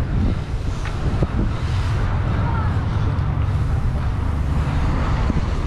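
Steady low rumble of wind buffeting the microphone of a camera on a bicycle being ridden along the road.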